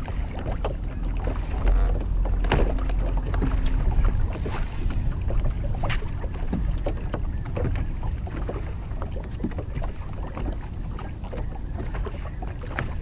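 Small waves lapping against a boat's hull with wind buffeting the microphone, a stronger gust from about a second and a half in; scattered light clicks and knocks run through it.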